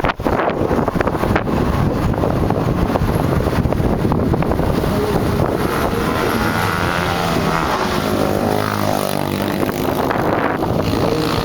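Wind buffeting the microphone and tyre and chassis rumble from a Kawasaki KLX dirt bike coasting with its engine off. About six seconds in, a wavering pitched drone joins the rumble.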